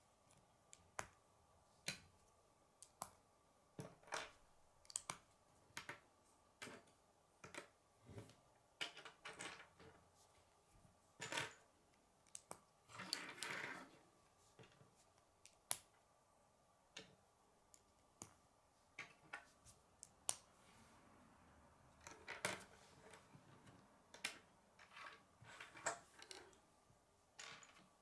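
Hard plastic K'nex connectors and rods clicking as they are snapped together and set down on a wooden table: irregular sharp clicks, with a short rattle of pieces being handled about halfway through.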